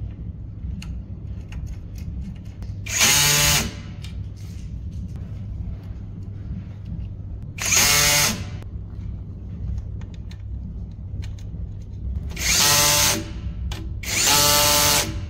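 Cordless drill-driver running in four short bursts of motor whine, each about a second long, driving the screws that fasten power-cable lugs to a battery BMS board's terminals.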